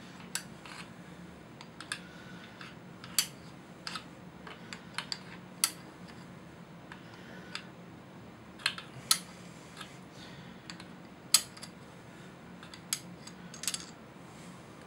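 A telescoping magnetic pickup tool clicking and tapping against the steel clutch basket and plates of a Triumph Daytona 675 engine as it fishes for stuck friction plates. The clicks are sharp and irregular, spaced a second or two apart, with a few louder clinks.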